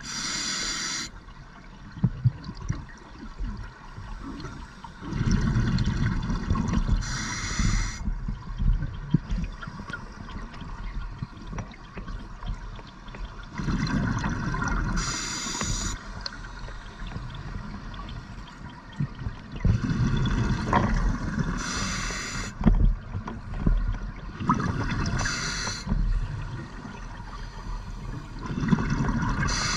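A scuba diver breathing through a regulator underwater, at a relaxed pace of a breath every six to seven seconds. Each exhalation is a low rumbling gurgle of bubbles, and each inhalation is a short, sharp hiss from the demand valve.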